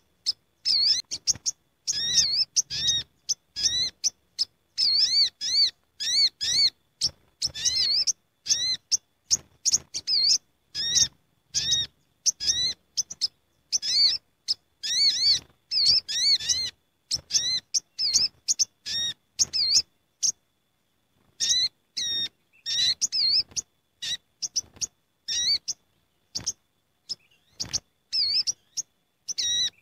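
Sunbirds (sogok ontong) calling busily together, a rapid run of short, high, sweeping chirps from several birds at once, with a brief pause about two-thirds through. It is a lure call recording (suara pikat) of a noisy gathering flock.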